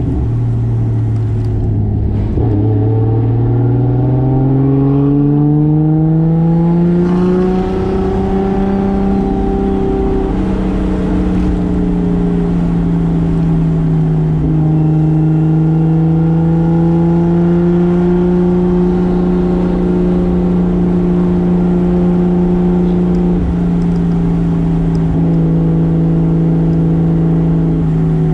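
Single-turbo 2JZ straight-six in a 1995 Toyota Soarer pulling smoothly up through the revs for about five seconds in one gear, starting a couple of seconds in. It then eases back slightly and holds a steady cruising engine speed.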